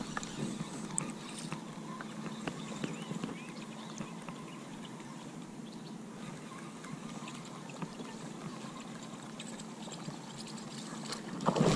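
Faint water trickling and lapping at a small boat, with scattered light ticks. At the very end comes a sudden loud splash as a fish strikes the lure at the surface.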